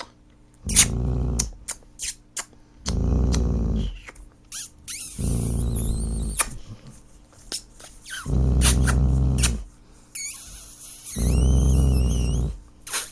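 Dog growling in five low, drawn-out growls, each about a second long and a few seconds apart, as it resists having its nails clipped.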